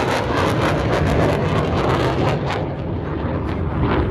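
Military jet aircraft roaring, its high-pitched edge fading about two and a half seconds in as a deep rumble carries on, as when a jet passes and draws away.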